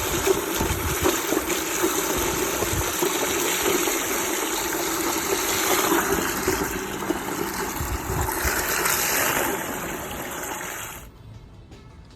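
Small homemade electric water pump running, with water gushing and splashing as it pumps. The sound stops abruptly about eleven seconds in.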